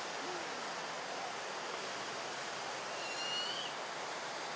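Buffy fish owl fledgling's begging call, heard over a steady noisy background. A short high whistle comes about three seconds in.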